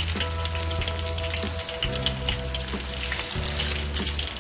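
Battered tempeh slices deep-frying in hot oil in a wok, a steady sizzle full of small crackles and pops as the batter starts to dry out near the end of frying. Under it, background music holds sustained low notes that change about every second and a half.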